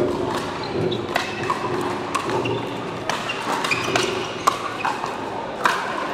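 Pickleball rally: a series of sharp pops from paddles striking a hard plastic pickleball, about one a second, each with a short echo.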